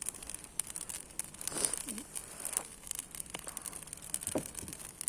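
Campfire crackling, with irregular sharp pops and snaps of burning wood.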